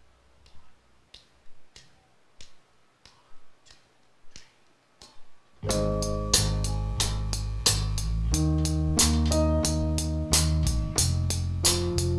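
Faint, evenly spaced ticking, about two a second, gives way about halfway through to a live band entering together: drum kit, electric bass and keyboard playing a steady instrumental intro.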